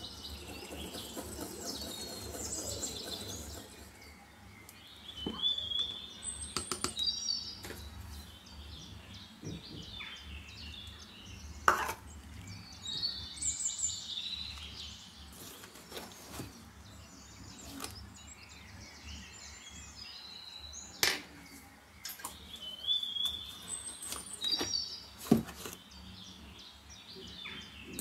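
Small birds chirping in short repeated calls, with a few sharp clicks of kitchen utensils against a glass bowl.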